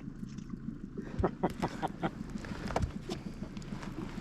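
Handling noises in a fishing boat as a freshly landed lake trout is held for measuring: a run of sharp knocks and taps from about a second in to near three seconds, over a steady low hum.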